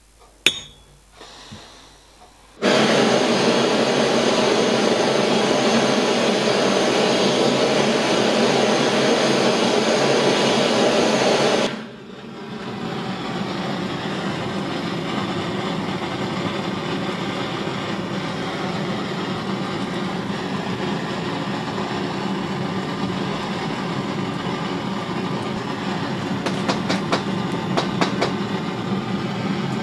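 Gas torch flame burning with a steady rushing hiss while heating a small steel part for case hardening. It lights suddenly a couple of seconds in after a click, and is turned down about twelve seconds in, then burns on more quietly.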